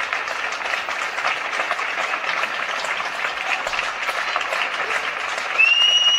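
Many people clapping together from apartment balconies and windows, a steady crackle of applause. Near the end a high whistle rises and holds over the clapping.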